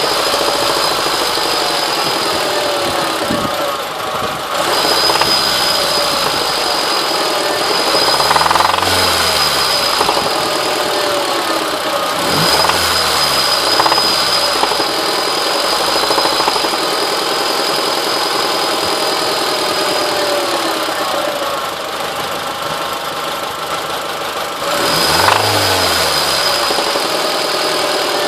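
2002 Honda Civic EX's 1.7-litre four-cylinder engine running with a knock, revved up and back down three times: rod knock from a worn connecting-rod bearing.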